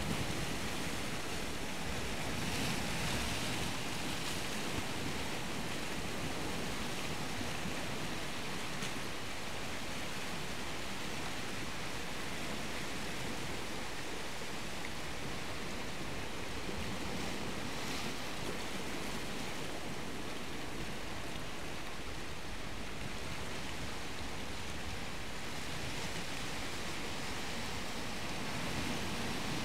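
Sea surf washing steadily on the shore, a constant rushing noise that swells now and then, a few seconds in, about halfway through and near the end.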